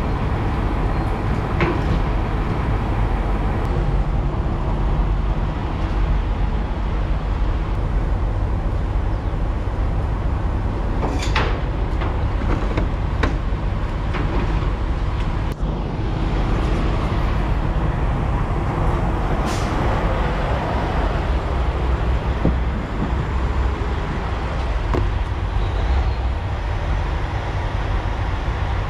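Semi-truck diesel engine idling at a fuel island: a steady low rumble. A few sharp knocks and clicks break through it, a cluster about a third of the way in and another past halfway.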